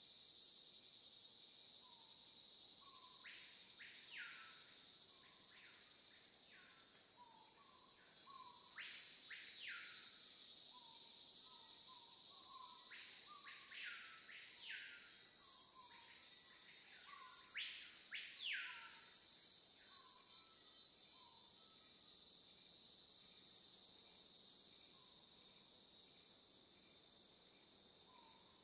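Insects shrilling in a steady high-pitched drone, with a bird giving repeated short rising calls from a few seconds in until about two-thirds of the way through.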